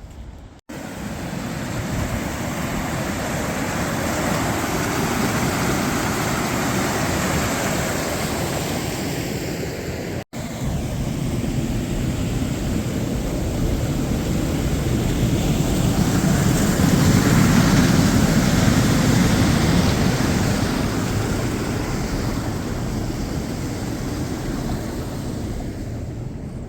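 Loud steady rush of fast-flowing floodwater, swelling about two-thirds of the way through. The sound cuts out for an instant twice, near the start and about ten seconds in.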